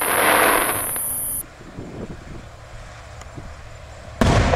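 Aerial firework shell bursting with a sudden loud boom near the end, after a second of hissing noise at the start and a low rumbling lull.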